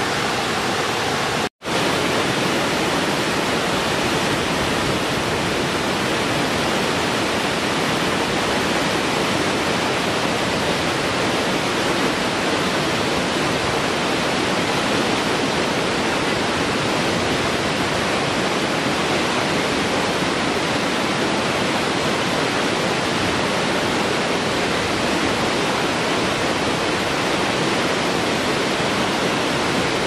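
Steady rushing of water cascading over rocks, from a rocky stream and a tiered waterfall. A brief dropout about a second and a half in breaks the sound.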